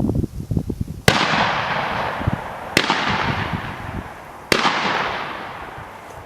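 Three shotgun blasts about a second and a half apart, each a sharp crack followed by a long, fading echo.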